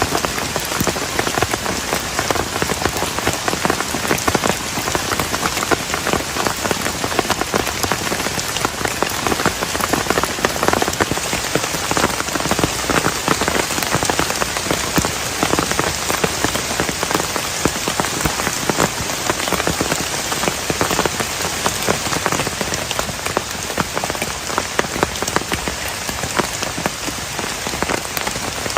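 Heavy rain falling steadily, with a dense patter of drops striking close to the microphone.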